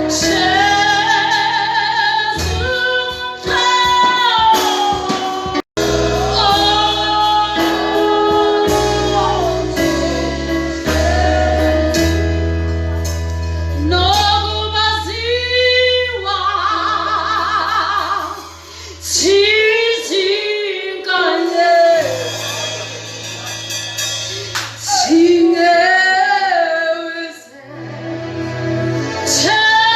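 Gospel song: a woman singing with backing music and steady low bass notes underneath; the sound cuts out for an instant about six seconds in.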